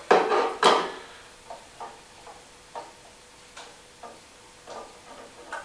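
Plastic knocks and clicks of a Godox AD200 flash being fitted into a Godox AD-B2 twin head: two sharp knocks within the first second, then a run of small light clicks at irregular spacing.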